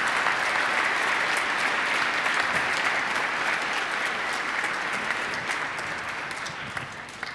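A large congregation applauding steadily, the clapping thinning out and fading away over the last couple of seconds.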